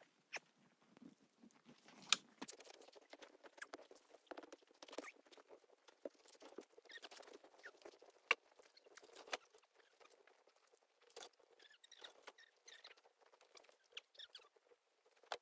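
Footsteps crunching in deep snow and scattered knocks of firewood logs being handled and stacked on a wooden sled, with a few sharper wooden clacks, the loudest about two seconds in and others around eight and nine seconds in.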